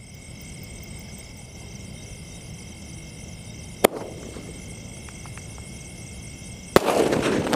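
12-shot aerial firework cake going off: a single sharp crack about four seconds in as the first shot launches, then a loud rush of noise near the end as more shots fire.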